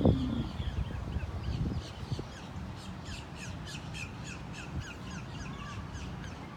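Birds calling outdoors: a rapid run of short, high chirps, about five a second through the middle stretch, over a low background rumble.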